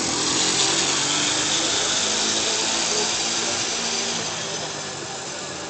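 Pocket bike's small engine running at a high-pitched, drill-like whine as it passes close by, then slowly fading as the bike rides off down the street.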